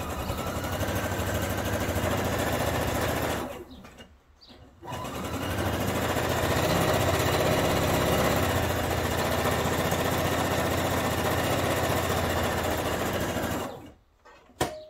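Pfaff sewing machine stitching a row of long gathering stitches, in two runs with a break of about a second around four seconds in. Each start rises in pitch as the motor speeds up. The machine stops near the end and a single sharp click follows.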